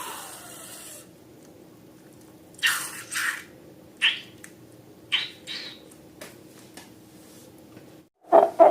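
Balloons and slime being handled: a few short squeaks, each a quick slide in pitch, between brief noisy squelches and a few faint clicks.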